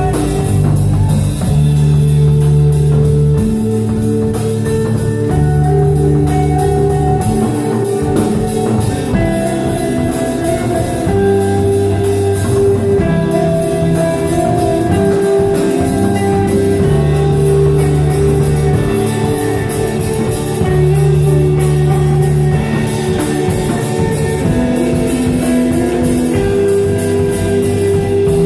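Live band music in an instrumental passage: electric guitar over long held bass notes that change every couple of seconds, with drums.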